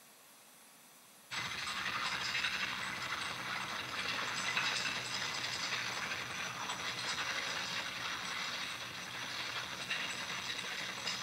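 Near silence for about a second, then a film soundtrack played back through the room's speakers starts abruptly: a steady, dense hissing, crackling noise.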